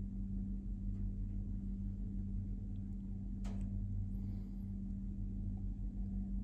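Steady low electrical-sounding hum, with a single short click about halfway through.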